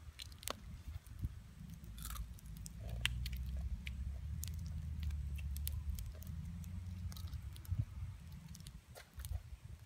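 Cooked crabs being eaten by hand: scattered small cracks and crunches of shell, with chewing. A low rumble runs underneath from about a second and a half in until about seven seconds.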